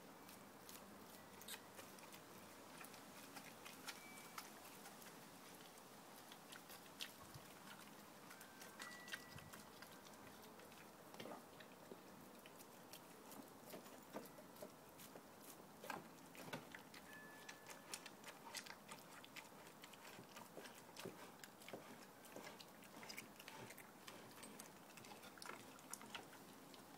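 A dog chewing and tearing at a large raw steak: faint, irregular chewing sounds with sharp clicks scattered throughout.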